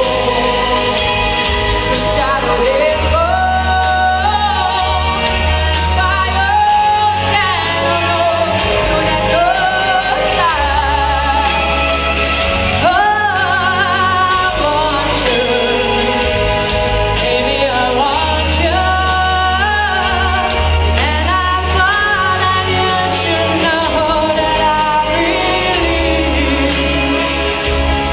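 A song: a singing voice carrying a melody over instrumental backing, with a bass line that moves in long held notes.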